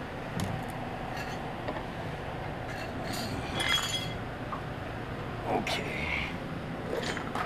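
Scattered light clinks and knocks, the loudest about three and a half seconds in with a short ring, over a steady background hum.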